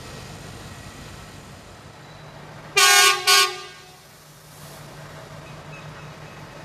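Train horn sounding two short, loud blasts about three seconds in, the second shorter than the first, over a steady low diesel engine hum.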